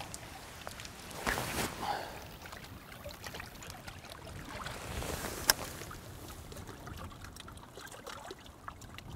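A feeder rod being cast: a brief swishing rush between about one and two seconds in as the rod swings through, then a single sharp click about five and a half seconds in, over gentle water lapping at the shore.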